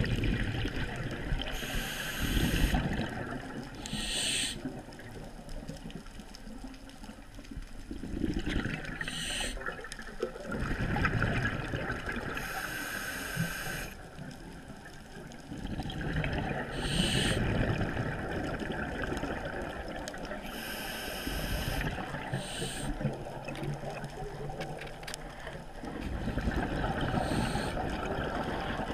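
Scuba diver breathing underwater through a regulator: short hissing inhalations alternate with longer bubbling exhalations, the cycle repeating every few seconds.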